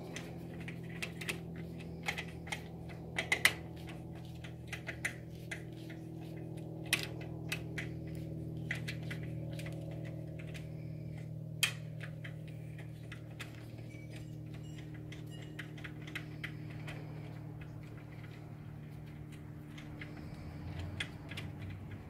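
Screwdriver hand-tightening machine screws in a screen door latch: irregular small clicks and taps of the tip in the screw heads and on the latch hardware, coming more often in the first half, with one sharper click about twelve seconds in. A steady low hum runs underneath.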